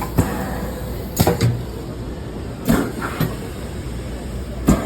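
Industrial power cylinder cycling on a demonstration rig: sharp metallic knocks every second or so, some in quick pairs, as it strokes, over a steady low hum.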